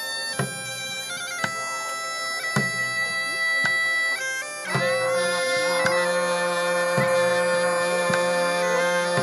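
Bagpipes playing a tune over a steady drone, the melody stepping from note to note and growing louder about halfway through. A low thump keeps a regular beat about once a second.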